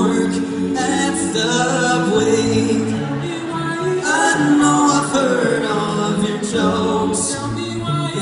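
Men's vocal group singing a cappella, several voices in harmony over a sustained low bass part.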